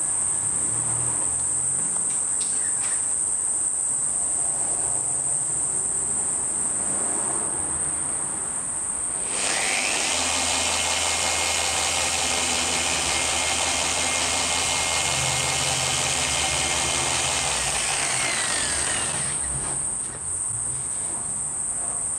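A Rupes dual-action polisher, at a low speed setting, runs on a coated paint panel for about nine seconds, starting about nine seconds in and stopping near the end. A steady high-pitched cricket chorus runs throughout.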